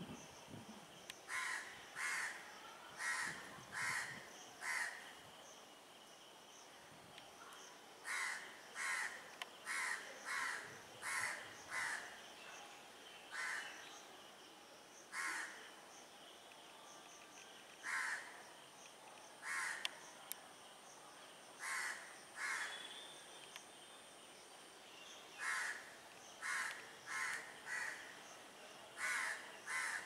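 Crows cawing repeatedly, in runs of several short caws about one to two a second, with pauses of a few seconds between runs.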